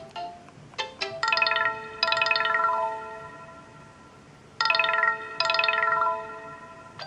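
BQ Aquaris E4.5 smartphone playing a ringtone preview. A short plucked tone stops about a second in, then a bright chime ringtone strikes twice about a second apart and rings out, and the pair repeats about three and a half seconds later.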